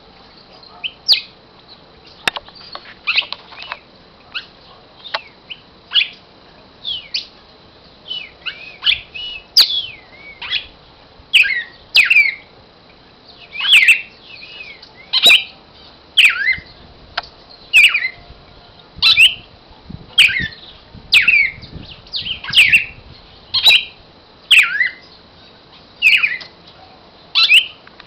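Cardinal singing: loud, falling notes that sweep down in pitch, scattered and irregular at first, then repeating about once every second and a half. Occasional sharp clicks come between the notes.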